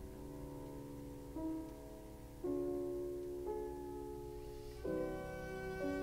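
Slow instrumental music with held chords that change about once a second, a new chord entering a little louder near the middle and again near the end.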